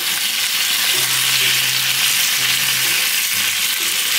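Slices of pork neck and dumplings frying in oil in a pan, a steady sizzle.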